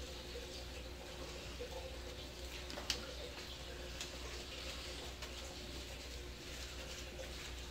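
Dachshund–basset hound mix puppies wrestling on puppy pads: soft rustling and scuffling with scattered clicks, one sharper click about three seconds in, over a steady low hum.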